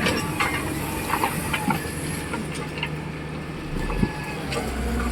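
Heavy diesel earthmoving machinery running steadily, with scattered short sharp clanks and knocks through it.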